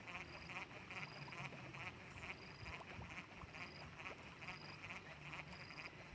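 Frogs calling in a faint, rhythmic chorus of pulsed, quacking calls a few times a second, with a short thin high note repeating about once a second.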